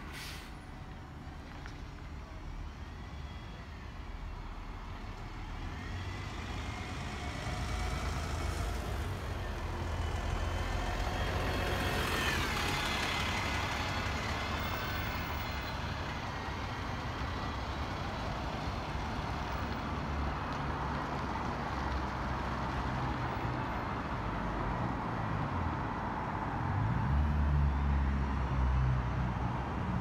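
Alexander Dennis Enviro400 MMC double-decker bus pulling away from the stop. Its engine rumble builds and grows louder, with a brief hiss of air about twelve seconds in.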